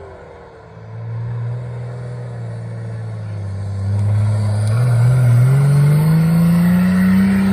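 Nissan Patrol off-roader's engine driving under load at fairly steady revs, then revving up with a steadily rising pitch over the last three seconds as it accelerates along the course.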